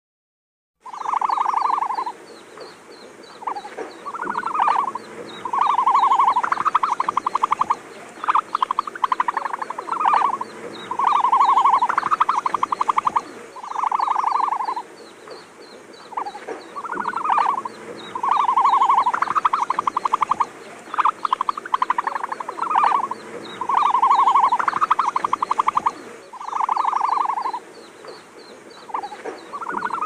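Repeated animal-like calls, some about a second long and smooth, others fast pulsed trills, in a sequence that repeats about every fourteen seconds over a steady fast ticking; it starts about a second in.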